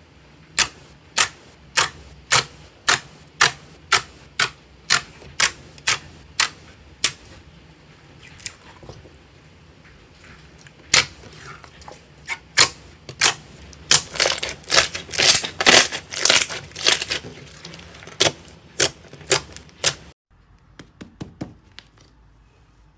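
Slime being pressed and poked, giving sharp clicking pops: evenly about two a second at first, then a faster irregular run, cutting off abruptly a few seconds before the end.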